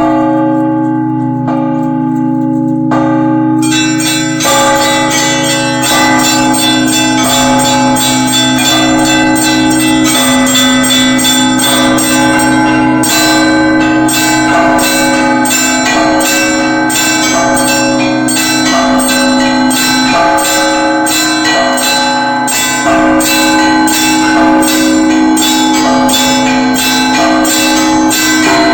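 Russian Orthodox church bells being rung by hand: deep bells hum steadily underneath, and about three and a half seconds in the small high bells join with a quick, steady run of strokes.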